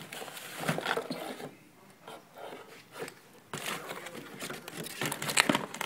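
Rustling, clicks and scrapes as an HID headlight kit's ballast, wiring and packaging are handled and pulled out of a cardboard box. Quieter in the middle, busier and loudest in the last two seconds.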